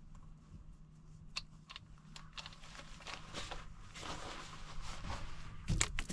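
Footsteps crunching on gravel with rustling and a few sharp clicks, growing louder toward the end, where a pair of clicks is loudest.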